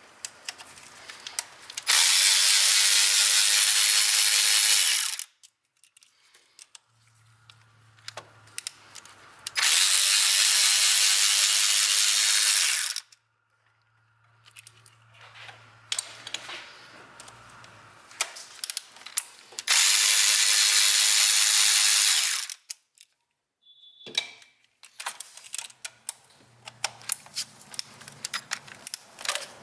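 Cordless electric ratchet (Snap-on) running in three bursts of about three seconds each, backing out the fuel rail bolts. Between bursts come softer clicks and rattles of the socket and tool being moved from bolt to bolt.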